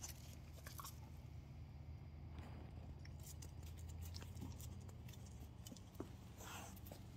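Faint crunching and scattered clicks of a dog chewing and gnawing, over a low steady hum.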